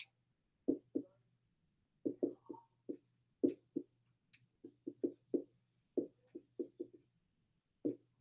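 Dry-erase marker writing on a whiteboard: a run of short, quick strokes, about twenty in all, with brief pauses between them.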